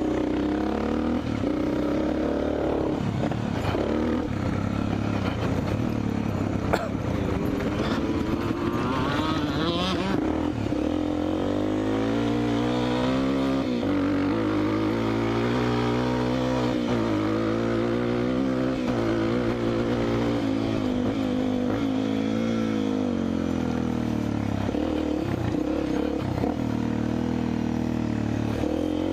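Motorcycle engine running, its pitch rising and falling again and again as it accelerates and slows.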